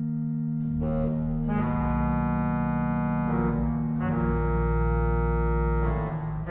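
Pipe organ playing: a held low drone, joined about a second in by full sustained chords with deep bass, which shift to new chords a few times.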